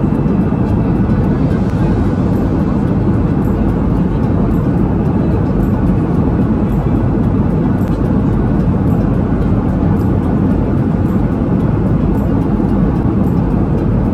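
Airliner cabin noise: a steady, even low rumble of engines and airflow heard from a passenger seat.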